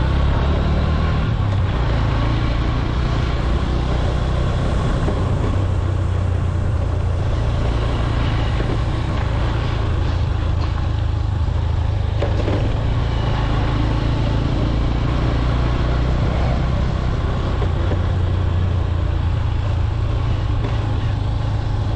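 Motorcycle engine running steadily while the bike is ridden along a road, a constant low hum with a rush of air and road noise over it.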